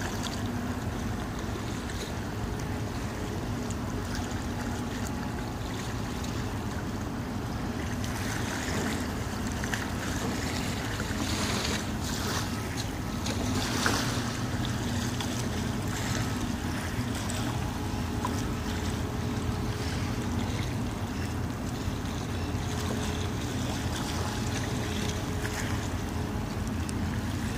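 Wind on the microphone and small waves lapping at the waterfront, over a low steady hum, with a few rougher gusts or splashes about a third of the way in.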